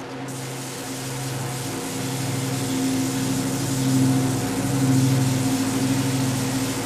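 Hatchery chick-grinding machine running: a steady low motor hum with a hiss over it, swelling a little about four and five seconds in.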